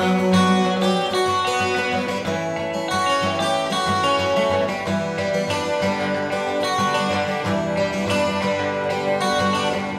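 Instrumental passage of a song, led by strummed guitars over a steady beat, with no singing.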